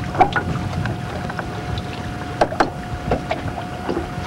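Wind buffeting a camcorder's microphone aboard a sailboat under way, a steady low rush with a faint steady tone through it. A few sharp clicks sound over it, one near the start and two close together about two and a half seconds in.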